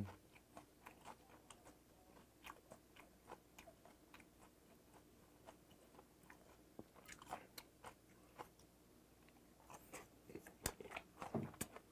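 Faint chewing and mouth clicks of a person eating spicy raw gizzard shad salad (jeon-eo hoe-muchim), with a short, louder sound near the end.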